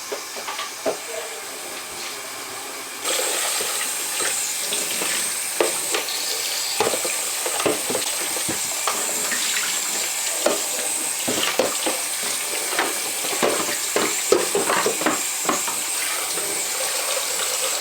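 Kitchen tap running water over a washing-up caddy being rinsed in the sink, with small knocks and clatters as it is handled. The flow gets louder about three seconds in.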